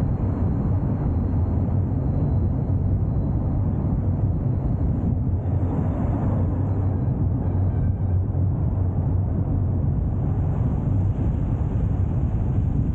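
Steady drone of a car driving along the road: engine and tyre noise with a constant deep hum.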